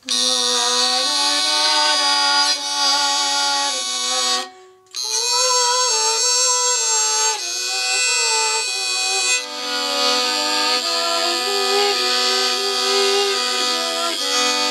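Circuit-bent violin bowed in slow, sustained notes. The sound is picked up by a piezo mic on the bridge and played through the instrument's Stylophone circuit and small speakers, so it comes out with an electronic tone. The playing breaks off briefly about four and a half seconds in, and some notes waver in pitch.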